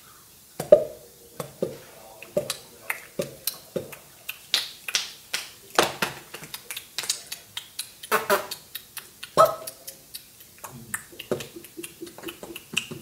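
A string of sharp pops and clicks, many with a brief pitched ring. They come about one a second at first, then faster and less regular from about four seconds in.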